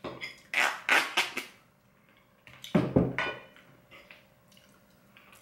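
Serving spoon and fork clinking and scraping against china plates while food is served, several sharp clinks in a cluster during the first second and a half and another cluster about three seconds in.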